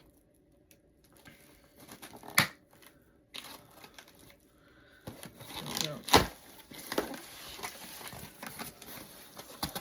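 A cardboard shipping box being opened by hand: packing material crinkling and tape or cardboard tearing, with two sharp knocks, one a little over two seconds in and a louder one about six seconds in.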